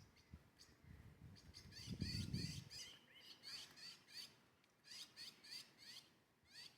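A small bird chirping in a quick run of short, high, downward-sweeping calls, several a second. A brief low rumble comes about two seconds in.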